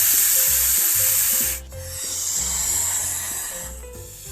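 Snake hissing in two long breaths: the first breaks off about one and a half seconds in, and the second starts soon after and fades out. Light background music plays underneath.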